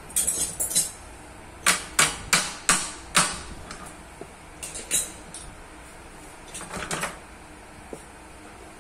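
Sharp metallic clicks and knocks from hands and tools working on bicycle gear parts: a quick cluster at the start, then five loud knocks in a row about a third of a second apart, and a few softer clicks later.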